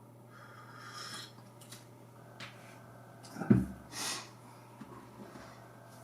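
A man's breathing in a pause between phrases: a soft breath in about a second in, a small mouth click, then a short low throat sound and a quick puff of breath through the nose a little past halfway, over a faint steady electrical hum.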